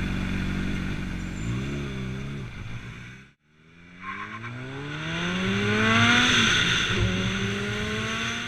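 Motorcycle engine running with a short rise and fall of the revs, cut off abruptly about three seconds in. Then a motorcycle engine accelerating, its pitch climbing steadily until it falls back about two thirds of the way through and runs on.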